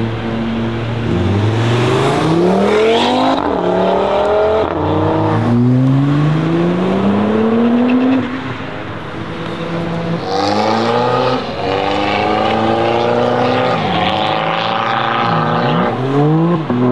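BMW M4 CSL's twin-turbo straight-six, through a loud custom exhaust, accelerating hard: the note climbs and drops back with each quick upshift. It eases off briefly, then pulls hard through the gears again about ten seconds in.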